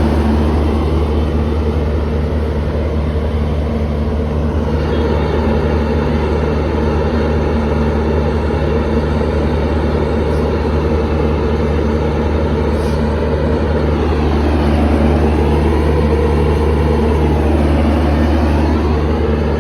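Diesel locomotive engine running close by, a loud steady low hum with a regular pulsing beat, its higher tones sweeping down and back up near the end.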